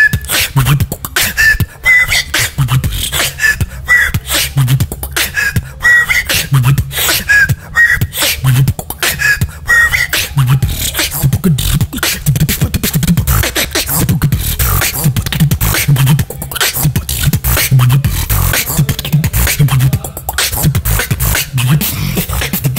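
Human beatboxing: a steady, dense beat of vocal kick drums and crisp snare and hi-hat clicks. Short high whistled notes are woven in, about one every half second to a second, for roughly the first ten seconds. After that the beat carries on without the whistles.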